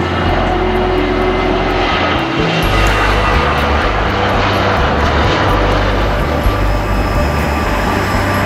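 Jet engines of a Boeing 737-800 (CFM56-7B turbofans) running at high thrust as the airliner begins its takeoff roll, a steady loud roar that grows brighter about two seconds in.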